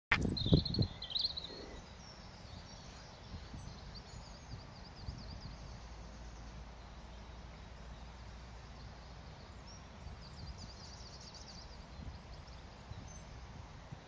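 European robin singing: short phrases of high, thin warbling in the first two seconds, then fainter again a few seconds in and around ten to twelve seconds in. A few low thumps at the very start are the loudest sound, over a low steady rumble.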